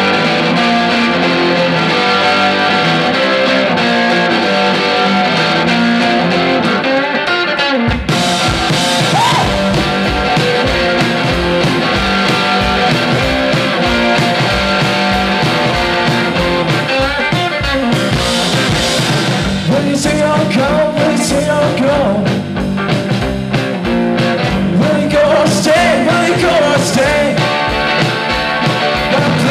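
Live rock duo playing loudly: an electric guitar plays alone for about the first eight seconds, then a drum kit comes in with a steady beat, and a voice sings over them in the second half.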